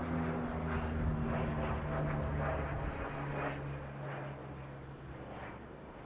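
Lockheed L-188 Electra air tanker's four turboprop engines droning as it flies low past. The propeller tone drops in pitch about three seconds in as the plane passes, then fades.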